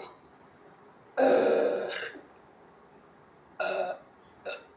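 A woman's long, loud burp about a second in, followed by two short, quieter sounds near the end.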